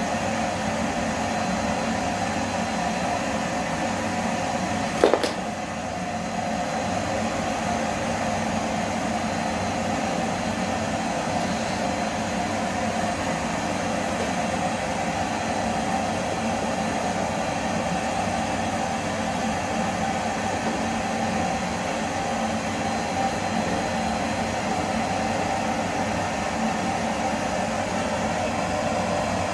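Vacuum cleaner running steadily, with one sharp knock about five seconds in.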